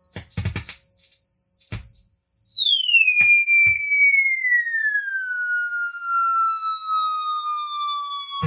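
Synth-like output of a Data Corrupter clone, a phase-locked-loop guitar synth pedal, run in parallel with a modified Robot clone pedal. It starts as a steady high tone broken by choppy notes. About two seconds in, one long electronic tone swoops up briefly, then glides steadily down in pitch, siren-like.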